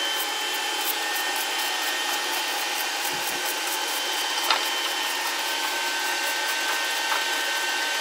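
Small electric blower running steadily, a high whine over the rush of air, blowing built-up dust out of the heatsinks of a Goldshell ASIC miner hashboard. A low bump comes about three seconds in, and a couple of light clicks follow.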